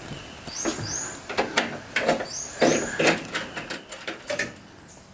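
Irregular metallic clicks and knocks from hand-tool work on the stainless steel burner assembly of an Evo circular grill. A bird twice chirps a pair of short high notes that rise and level off.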